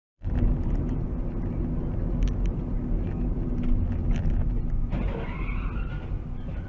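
Steady engine and road rumble of a moving car heard from inside the cabin, starting abruptly. About five seconds in, a curving squeal of skidding tyres joins as an oncoming car swerves.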